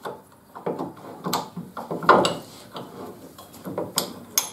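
Metal parts of a circular saw blade sharpener being handled by hand: scattered clicks, knocks and scrapes as the blade-mount hub is turned and shifted on its steel plate, with two sharp metal taps near the end.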